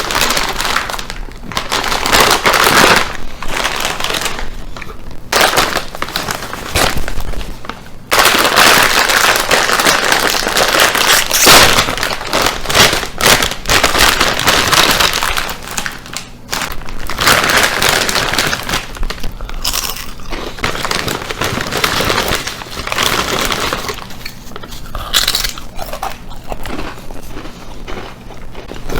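A bag of chips being crinkled and crunched, loud irregular crackling and crumpling in stretches with short pauses.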